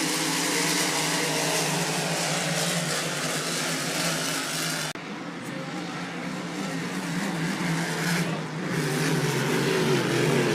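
Racing hydroplane engines running steadily on the course, with a hiss of spray and wind. There is an abrupt break about five seconds in, and the engine note grows louder near the end.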